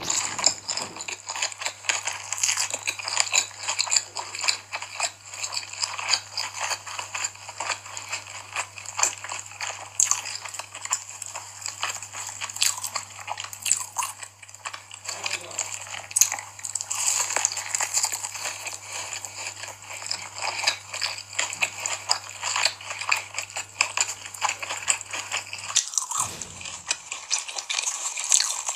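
Close-miked eating sounds: a continuous run of crunchy bites and chewing with crackly, irregular clicks. A low steady hum runs underneath and stops near the end.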